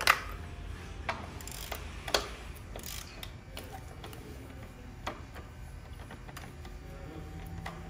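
Hand socket ratchet clicking as a bolt is loosened, with a few sharper metal clinks, the loudest at the start and about two seconds in.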